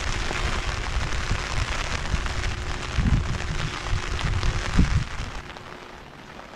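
Rain pattering on a fabric umbrella held just above the microphone, a dense crackle of drops with irregular low rumbles underneath. The sound drops off noticeably about five seconds in.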